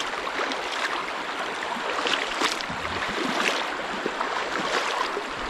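Shallow river running over a rocky riffle, a steady rush of water, with a few sharper splashes from wading steps about two to three and a half seconds in.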